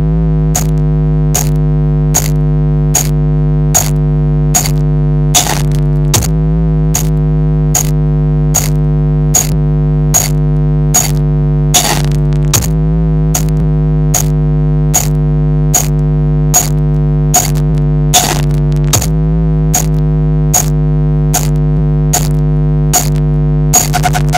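Loudspeaker sound system playing a loud, steady electronic drone of several held low tones, with a sharp click about every 0.8 s in an even beat, as a speaker check.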